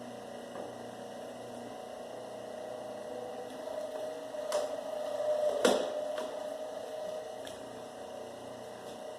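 Electric wire stripping machine's motor running with a steady hum as jumper cable is fed through, getting louder in the middle, with a few sharp clicks, the loudest a little past halfway.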